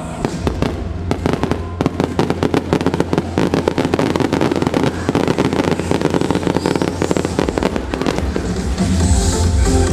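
Aerial fireworks bursting in quick succession, a dense run of rapid cracks and bangs over the show's music soundtrack. Near the end the cracking thins out and the music comes to the fore.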